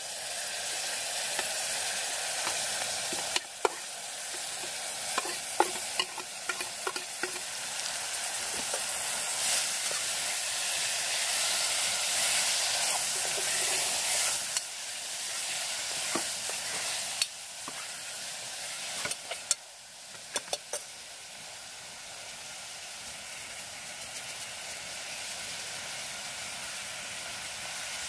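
Food sizzling as it fries in a pan, stirred with a metal utensil that clicks and scrapes against the pan now and then. The sizzle drops in level about two-thirds of the way through, followed by a few quick clicks of the utensil.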